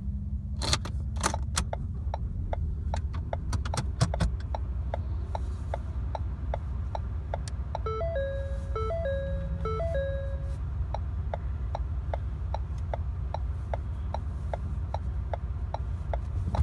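Car turn-signal indicator clicking steadily, about two and a half clicks a second, over engine and road rumble inside the cabin. About 8 seconds in, a dashboard chime plays a short stepped series of tones.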